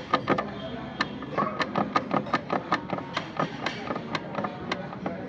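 A series of sharp, irregular taps and clicks, several a second, over a faint steady hum.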